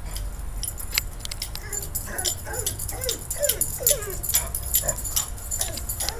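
A dog making a run of short, high calls that bend up and down in pitch, clustered in the middle of the stretch, with sharp clicks scattered throughout.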